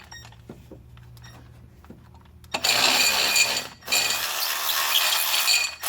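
Milwaukee 12V cordless ratchet running, spinning out a water pump bolt that has already been broken loose. It runs in two long bursts with a brief pause between, starting about two and a half seconds in, and a third burst begins near the end. Before that, faint clicks come from the socket being fitted onto the bolt.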